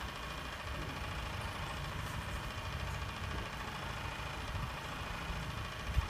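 Small electric motor of a homemade RC concrete mixer truck running steadily, with the truck standing still.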